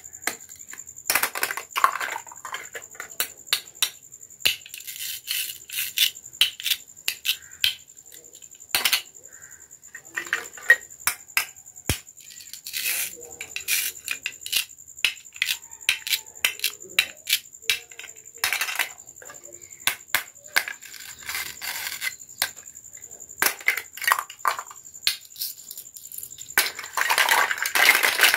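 Hard plastic toy fruit and vegetable pieces clicking and clacking as they are handled and fitted together. Near the end there is a dense rattle as the pieces jostle in a plastic basket.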